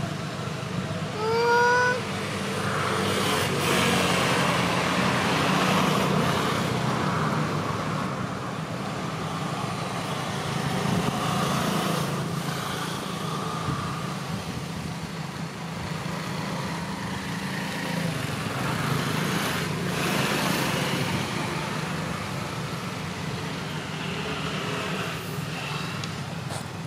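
Steady low rumble of distant road traffic, with a short, rising squeal from a long-tailed macaque about a second in, the loudest sound.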